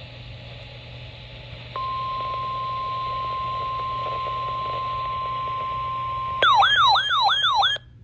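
Weather radio hiss, then about two seconds in the steady 1050 Hz NOAA Weather Radio warning alarm tone starts, the signal that sets receivers off for a warning. Near the end a louder warbling siren-like alarm cuts in over it for about a second and a half, then the sound drops out briefly.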